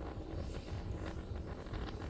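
Distant rumble of Starship SN11's three Raptor rocket engines in flight: a steady low rumble with scattered crackles, mixed with wind noise on the microphone.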